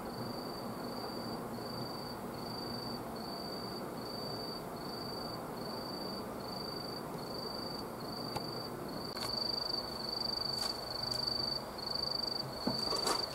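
A cricket chirping: a single high tone in evenly spaced pulses about twice a second, running together into a near-continuous trill from about nine seconds in, over a steady background hiss. A few sharp clicks near the end.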